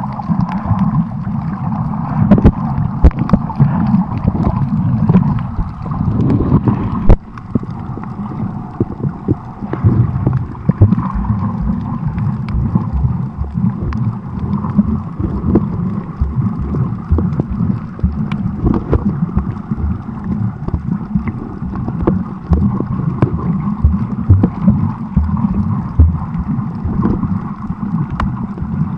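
Underwater audio picked up by a submerged camera: a muffled, churning rumble of moving water against the housing, with many small clicks and crackles through it.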